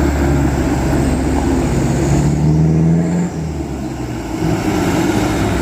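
A truck engine running with a low, steady rumble, its pitch rising slightly about two seconds in and settling again.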